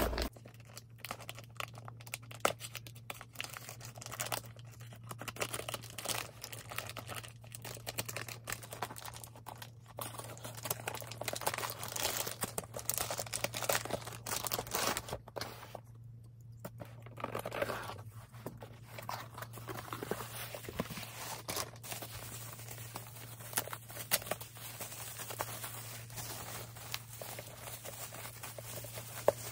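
A mail package being opened by hand: packaging tearing and crinkling in quick irregular crackles, with a short lull just past halfway, over a faint steady low hum.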